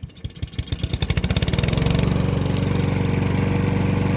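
Single-cylinder Honda engine on a walk-behind lawn mower starting: separate firing strokes quicken over the first two seconds as it catches, then it runs steadily at speed.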